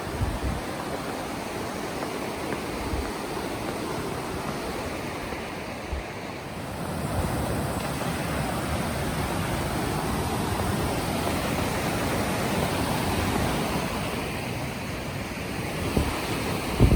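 Mountain creek rushing over rocks: a steady roar of water, with a few dull low thumps.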